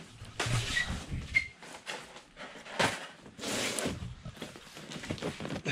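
Cardboard boxes of engine parts being handled and slid on a metal workbench: scraping and rustling, with one sharp knock a little before three seconds in.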